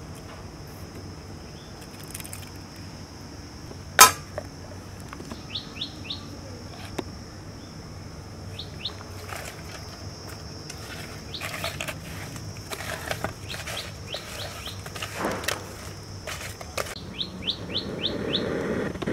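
Birds chirping in short runs of quick high calls over a steady high hiss, with scattered clicks and knocks of hands working fish on a steel plate; a sharp click about four seconds in is the loudest sound. Near the end comes a soft rushing as mustard oil is poured into a steel kadai.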